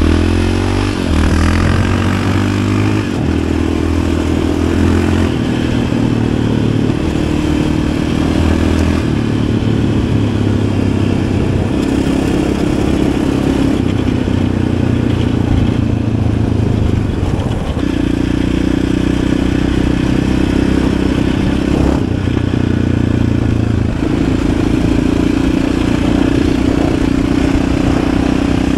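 Yamaha Raptor 700 ATV's single-cylinder four-stroke engine running under changing throttle while riding, revving up in the first couple of seconds, then its pitch stepping up and down every few seconds.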